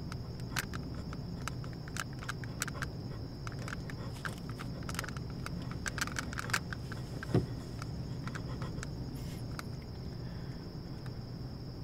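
Night ambience: crickets chirring in one steady high tone over a low, steady rumble, with scattered faint clicks and one sharper click a little past the middle.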